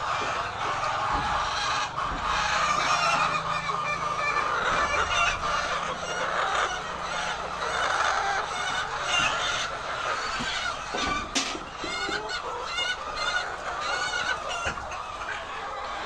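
A large flock of white laying hens clucking and calling all together: a dense, continuous chatter of many overlapping calls, with a single sharp click about two-thirds of the way through.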